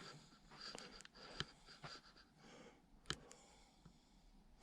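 Near silence: room tone with a few faint clicks, the sharpest about a second and a half in and another about three seconds in.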